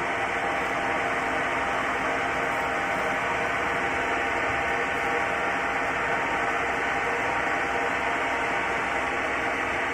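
Capstan lathe running with its spindle turning the workpiece while a drill bit in the turret head feeds into it: an even, steady machine noise with no breaks.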